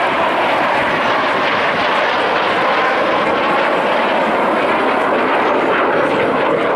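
Fixed-wing aircraft's engine noise as it flies the display, a loud, steady rushing sound.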